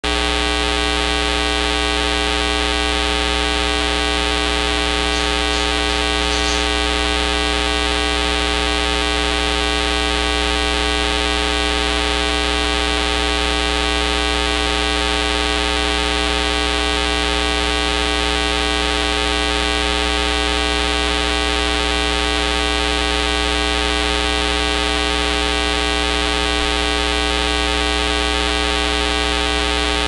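A loud, steady buzzing hum with many overtones that never changes, which covers any sound from the budgie.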